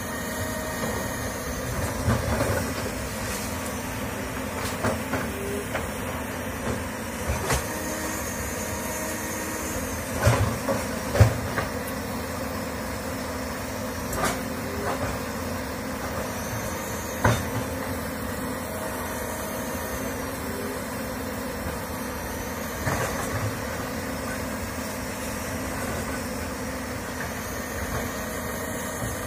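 Komatsu crawler excavator's diesel engine running steadily, with scattered clanks and knocks from the machine as it works, the loudest about ten to eleven seconds in.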